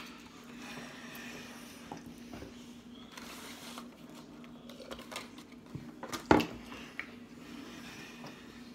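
Chewing and pizza-eating sounds, small mouth and handling noises over a steady low hum. A sharp knock about six seconds in is the loudest sound.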